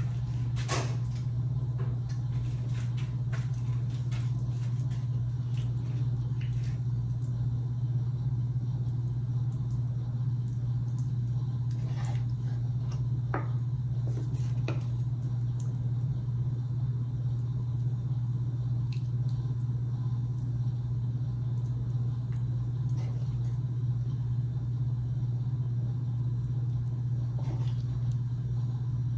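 A steady low hum, with a few short clinks of a serving spoon against a metal pot and plates as food is dished out.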